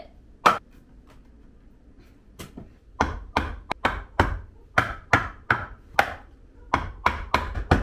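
Claw hammer striking a wooden board to tap it into a tight fit on a window sill. One blow, a pause with a couple of light taps, then a steady run of blows, about two to three a second.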